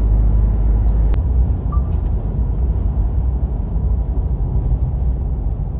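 Steady low rumble of tyre, road and engine noise inside a car cabin at highway speed, with a single sharp click about a second in.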